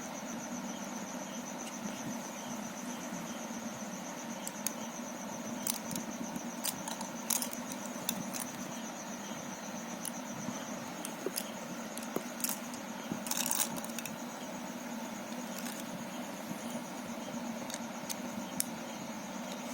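Small plastic Rubik's cube pieces clicking now and then as they are handled, a few scattered sharp clicks with a short cluster about two-thirds of the way in, over a steady background hum with a thin high whine.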